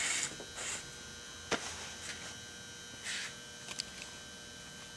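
Steady faint electrical hum, with a sharp click about a second and a half in, a short hiss near the middle and a few small ticks.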